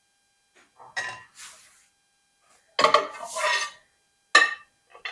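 Ceramic dishware and a metal ladle clinking and scraping: a ladle knocking against a small bowl packed with rice, then a plate being handled, in a few short clatters with the loudest cluster about three seconds in.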